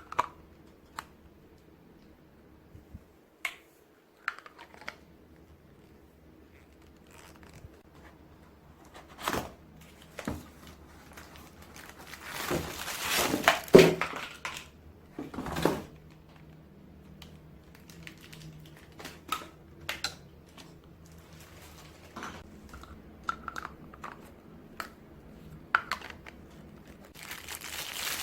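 Household handling noises: crinkling and rustling, like plastic or paper being handled, with scattered sharp clicks and light knocks. The crinkling is loudest and densest from about twelve to sixteen seconds in.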